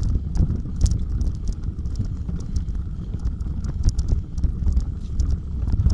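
Bicycle clattering and rattling over a rough off-road trail: irregular knocks and clicks over a heavy rumble of wind and jolting on the microphone.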